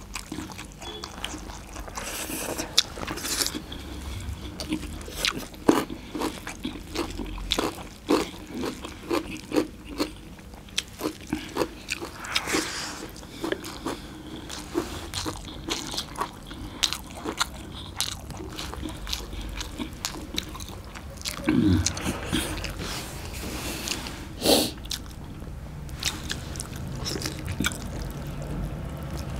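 Close-up eating sounds of two people eating rice and mutton curry by hand: irregular chewing and lip smacks, with fingers mixing rice on steel plates.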